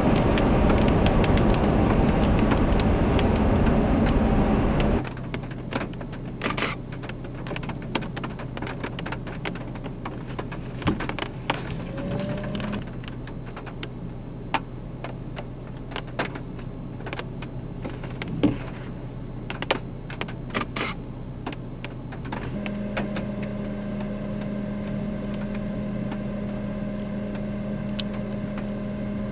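Car driving on a wet highway, a loud steady rush of tyre and road noise that cuts off about five seconds in. Then a much quieter low steady hum inside the stopped car, with scattered light ticks of raindrops on the glass, and a steady higher whine joining about three-quarters of the way through.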